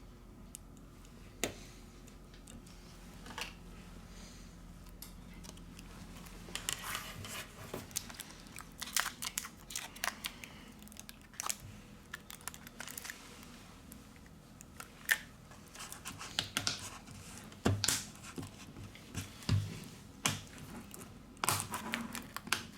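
Irregular small clicks, taps and scraping of tweezers and plastic and metal phone parts being handled and pressed together during reassembly, with a stretch of crinkling, tearing-like rustle in the middle, such as adhesive or film being handled. A faint low hum sits under the first few seconds.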